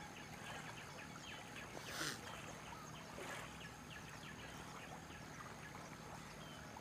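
Faint outdoor morning ambience with small birds chirping again and again, over a thin steady high tone. A short burst of rustling noise about two seconds in is the loudest moment.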